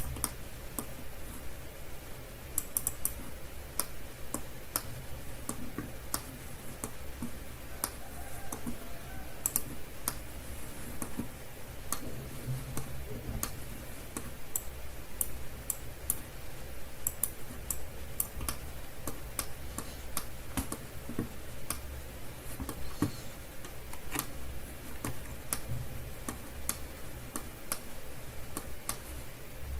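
Computer keyboard keys and mouse buttons clicking at an irregular pace, over a low steady hum.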